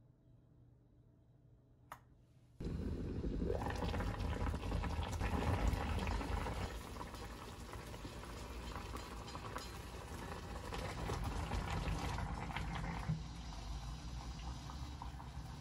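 Braised kimchi and whole pork belly (kimchi-jjim) bubbling steadily in a clay pot, starting suddenly a couple of seconds in after a faint stretch with a single click.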